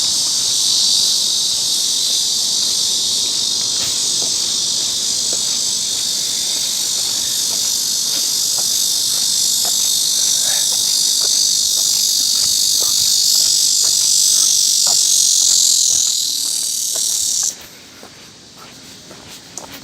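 Cicadas singing in a loud, steady, high-pitched chorus that stops abruptly near the end.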